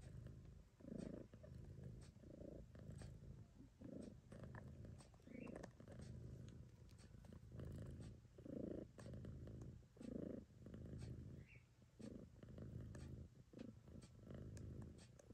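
Mother cat purring softly while nursing her kittens, a low steady rumble that swells and fades with each breath, about once a second.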